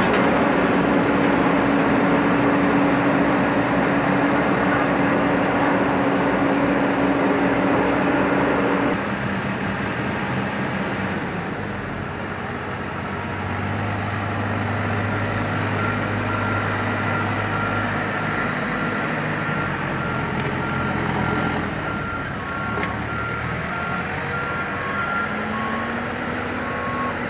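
Diesel construction machines running close by: a Sakai SV525D roller compactor and a New Holland backhoe loader hauling soil in its front bucket. A loud steady hum cuts off abruptly about nine seconds in. In the second half a reversing alarm beeps repeatedly.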